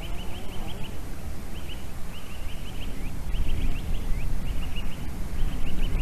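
White-tailed eagle calling: about six bursts of rapid, high yelping notes, several notes to a burst and roughly one burst a second. Wind rumbles on the microphone underneath, growing stronger toward the end.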